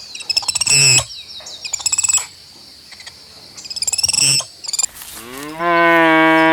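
Small birds chirping in three short bursts, then about five seconds in a cow gives one long moo that rises in pitch and then holds steady.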